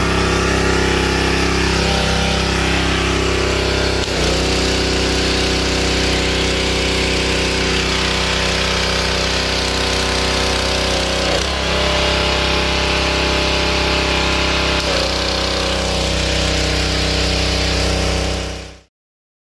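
Pressure washer's small 6 hp Kohler single-cylinder engine running steadily at speed after a carburetor clean-out. Its note shifts slightly for a moment about four, eleven and fifteen seconds in, and the sound cuts off abruptly just before the end.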